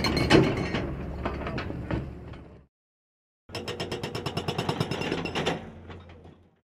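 Hydraulic hammer breaker pounding in a fast, even rhythm of about eight blows a second. It fades out, stops for under a second, then starts again and fades away near the end.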